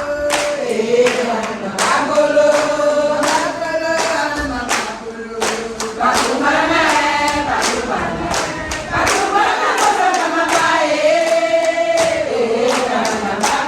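A group of voices singing together, holding and sliding between notes, over sharp regular beats about two or three a second.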